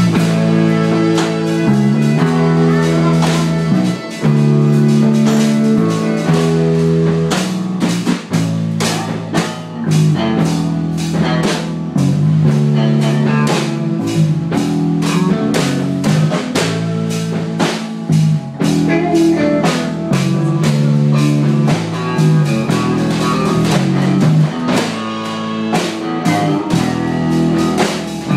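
A blues-rock song with guitar and a driving drum beat.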